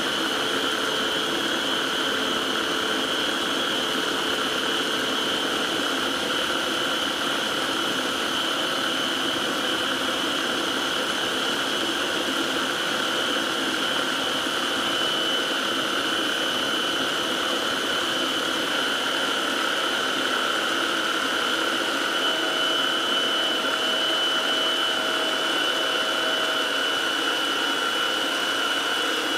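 Small electric food processor running steadily with a constant whir and a high whine, emulsifying a slow drizzle of oil into blended garlic and egg white.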